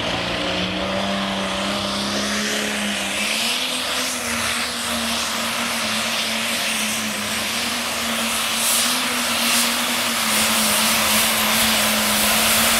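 Light Pro pulling tractor with an International body, its engine held at full throttle as it hauls the weight-transfer sled. The engine keeps a steady note that steps up slightly about three seconds in, over dense noise, and the whole sound grows louder toward the end.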